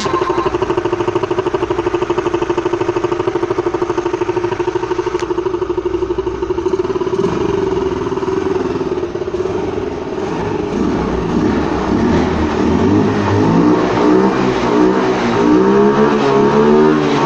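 Yamaha Ray ZR scooter's single-cylinder engine running with an open cone air filter in place of the stock air filter, which makes its intake sound louder. It idles steadily at first, then from about ten seconds in it is revved up and down again and again.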